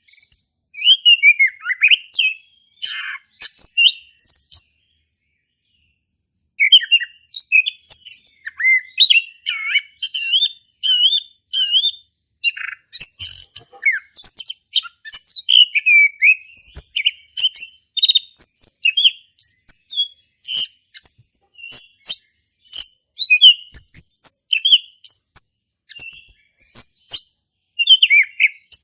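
Male chestnut-capped thrush (anis kembang) singing in full song: a rapid, varied stream of short, high whistled and chattering notes. It breaks off for about two seconds near the fifth second, then goes on.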